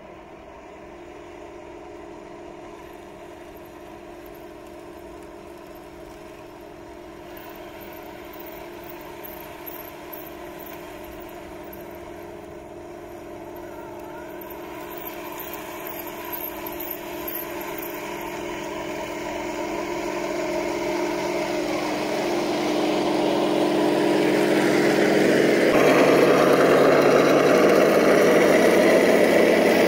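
A Heng Long Leopard 2A6 RC tank, fitted with metal upgrades, driving toward and past the camera: a steady engine-like hum with a whine, getting steadily louder as it closes in. About 26 s in it becomes a much louder, rougher rush of running gear and track noise as the tank passes close by.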